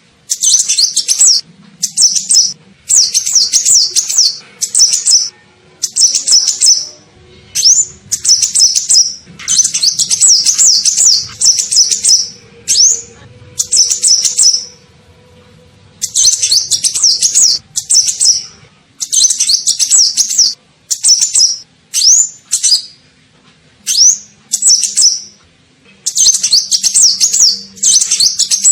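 Kolibri ninja sunbird song, used as a lure call: loud bursts of rapid, high twittering chirps with quick upward sweeps, each burst about one to two seconds long and repeated after short pauses.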